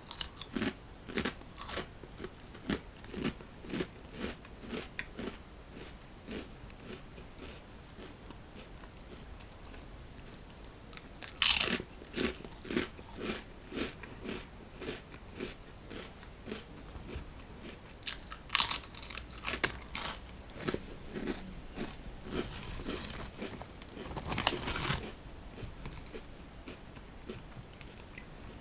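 A person biting into and chewing a crunchy snack: steady crisp chewing crunches about two a second, broken by three louder bites spaced several seconds apart.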